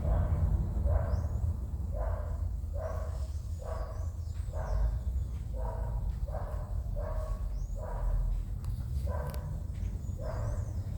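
A dog barking over and over in a steady rhythm, a little more than once a second.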